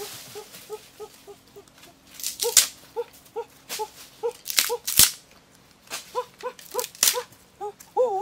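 Puppy whimpering in a long string of short, high whines, two or three a second. A few loud sharp clacks cut in, about two and a half, five and seven seconds in.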